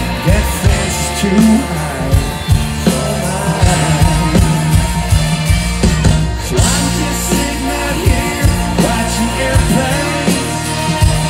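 A live country rock band playing loudly, with a male lead singer singing into a microphone over electric guitar, keyboards and a steady drum beat.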